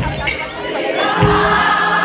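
Live gospel music: several voices singing together over a drum kit and a bass guitar, with a kick-drum thump about every second and a bass note held from about a second in.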